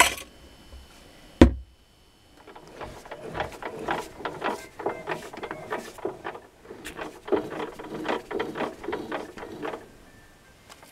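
A single sharp knock, then from about two seconds in, a lathe tool cutting the copper commutator of a washing-machine motor armature: irregular scraping and clicking as the commutator is turned down, stopping near the end.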